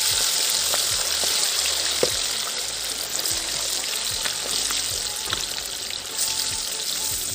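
Turmeric-and-salt-coated fish steaks deep-frying in hot oil in a kadhai: a steady, loud sizzling hiss with scattered small pops and crackles.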